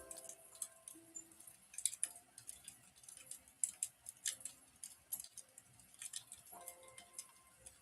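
Wood fire crackling: irregular sharp pops and snaps, a few of them louder, over faint held tones.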